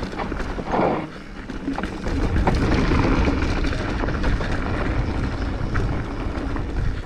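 Mountain bike rolling fast down a dry dirt trail: tyre rumble and wind rushing over the camera's microphone, with light rattling clicks from the bike. It gets louder about two seconds in as speed picks up.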